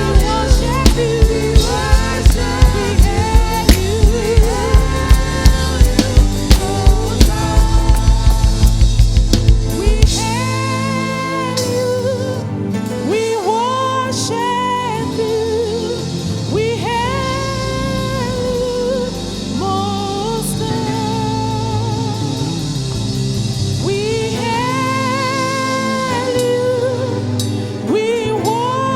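Gospel worship music: singers with a band. A drum beat keeps a steady pulse for about the first ten seconds, quickening before it stops. The voices then carry on over held accompaniment.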